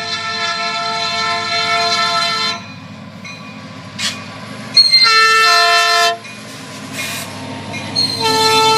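Diesel freight locomotive's air horn, a scary-sounding dissonant chord: one blast ends about two and a half seconds in, a shorter blast follows around five seconds, and a long blast starts near the end, in the long-long-short-long pattern blown for a road crossing. The locomotive's engine and the train's wheels rumble steadily underneath.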